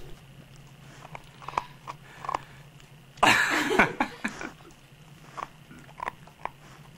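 A cattle-and-sheepdog nosing and biting at a cookie through a woven blanket: scattered small clicks and mouth noises, with one louder burst about three seconds in.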